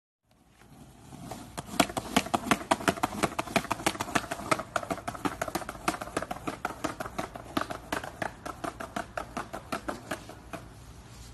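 Skateboard wheels rolling across the joints between concrete paving slabs, a steady clacking of about four knocks a second that grows fainter near the end.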